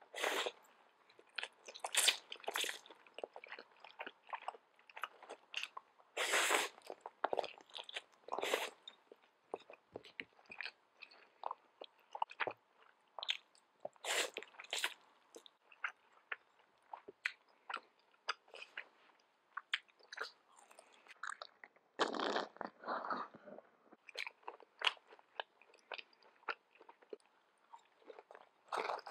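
Close-miked eating of spicy fire noodles: instant noodles are slurped in and chewed, as a dense run of wet, irregular mouth clicks broken by several longer slurping stretches.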